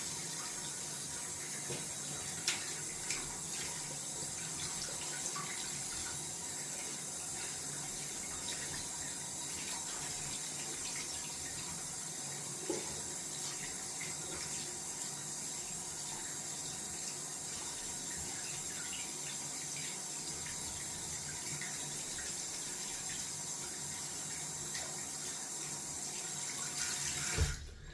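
Tap water running steadily into a sink while a boar-bristle shaving brush is rinsed out under it, with a couple of faint knocks. The flow stops near the end.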